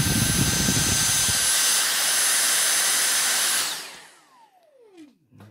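Dyson V6 Animal cordless vacuum running at max (turbo) power on a new replacement battery, a steady rush of air with a high whine. About three and a half seconds in it stops, and the motor's whine falls away as it spins down. A couple of small knocks come near the end.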